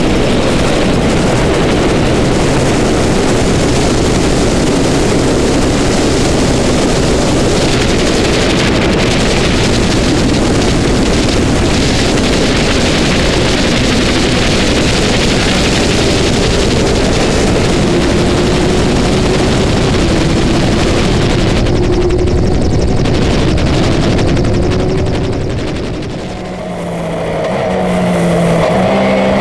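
Loud, steady rushing vehicle noise with a faint low hum underneath. About 26 s in it dips, and a racing car engine comes in near the end, its pitch climbing in steps as it runs up through the gears.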